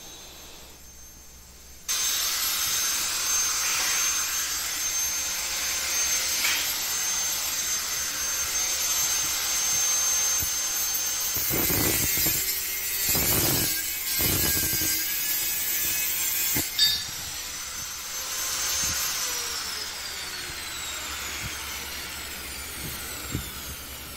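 Angle grinder with an abrasive cutting disc starting suddenly about two seconds in and cutting steel with a steady high whine. After about 19 seconds it is switched off and its pitch falls as the disc winds down.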